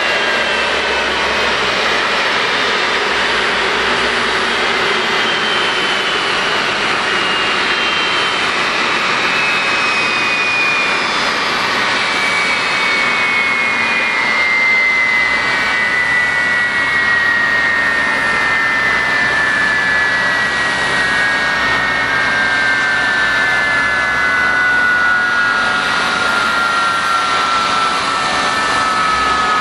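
Boeing 767 turbofan engines winding down after shutdown at the stand: a whine that falls slowly and steadily in pitch over a continuous rushing hum.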